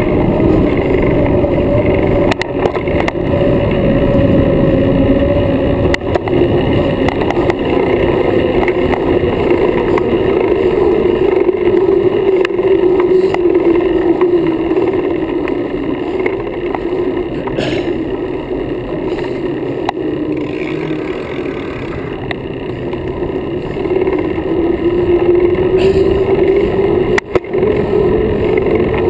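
Riding noise from a bicycle-mounted camera: a loud, steady rush of wind on the microphone and tyres on pavement, with a humming drone that drifts up and down with speed. A few sharp knocks come from bumps in the path.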